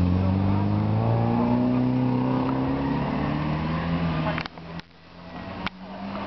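Car engine held at high revs, its pitch slowly rising and then falling. The sound drops away suddenly about four and a half seconds in, followed by a few sharp clicks.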